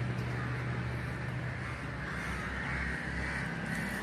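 Crows cawing several times, mostly in the second half, over a steady low hum.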